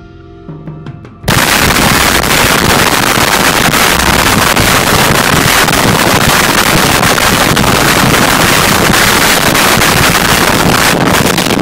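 Loud, crackling rush of wind and road noise buffeting the microphone of a Can-Am Spyder three-wheeled motorcycle riding at road speed. It cuts in abruptly about a second in, after a moment of quiet music.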